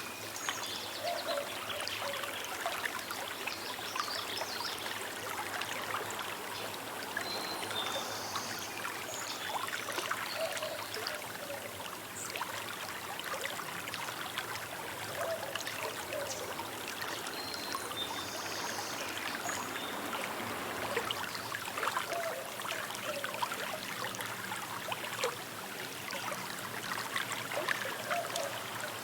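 Small river running steadily over stones, a continuous trickling and splashing of shallow flowing water.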